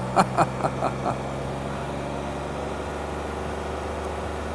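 A vehicle engine running steadily at low speed, a constant low hum.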